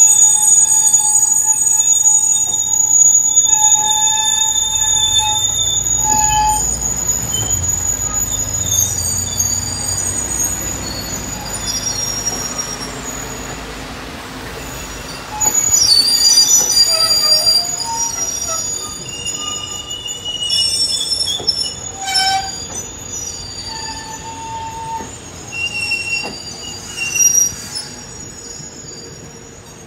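Loaded stone hopper wagons rolling slowly on quarry track, their wheels squealing in several high-pitched tones that come and go over a low rolling rumble. The squeal flares up loudly about halfway through and again twice near the end.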